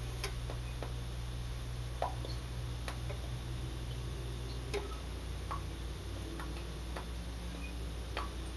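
A steady low electrical hum with about ten soft, irregular clicks and taps scattered through it, the small contact noises of someone signing silently.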